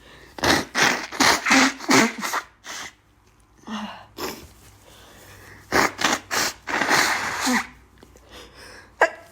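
A woman with bad allergies blowing her nose: two runs of several short, forceful nasal blows with a pause between.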